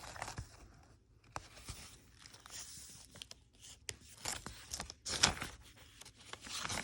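Paper pages of a handmade journal rustling and crinkling as they are handled and turned, in irregular short rustles with a louder one about five seconds in.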